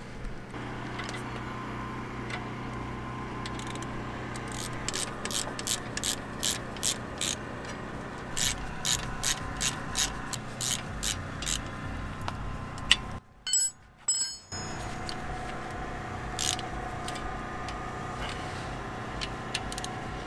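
Socket ratchet wrench clicking in runs of quick clicks, two or three a second, as the brake caliper bolts are run in. The sound drops out briefly about two-thirds through.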